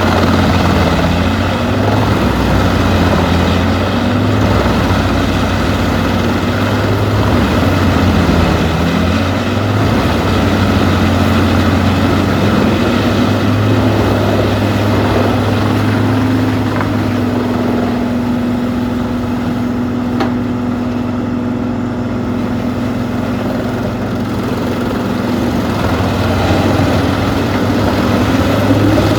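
Peterson 4310B wood chipper running loudly. Its engine note wavers and dips briefly in the first ten seconds, then holds steady.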